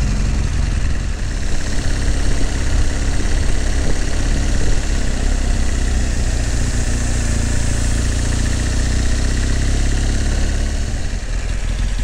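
Motorcycle engine running steadily under way through city traffic, with wind and road noise rushing over the bike.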